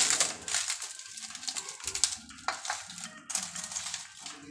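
Dry, crumpled banana leaves crackling and rustling as a pan is turned over onto a steel plate, loudest at the start, with a couple of sharp metal clinks about two seconds in.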